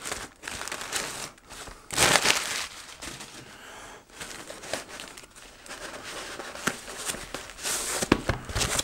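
Plastic packaging crinkling and rustling in irregular bursts as a small box is pulled out of a black plastic mailer bag and its white wrapping is handled. The loudest rustle comes about two seconds in, with more near the end.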